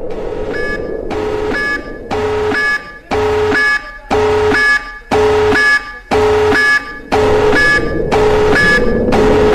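Electronic warning siren sounding in short pulses, about one a second, each pulse a steady two-tone beep over a noisy background.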